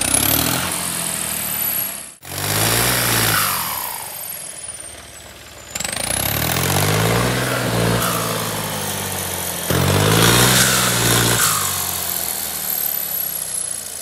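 John Deere tractor diesel engine revved up several times, its turbocharger giving a high whistle that climbs steeply as the revs rise and slides slowly down as they fall. After each rev a lower whistle falls in pitch, the note of the whistle attachment fitted to the turbo.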